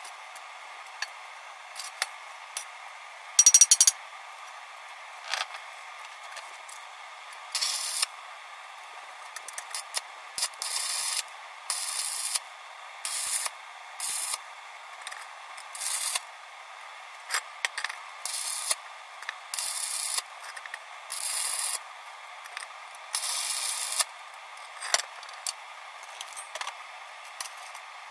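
Stick welder arc crackling in about a dozen short bursts, each under a second, as tack welds are struck on steel pipe joined to a steel plate. One short loud knock about three and a half seconds in.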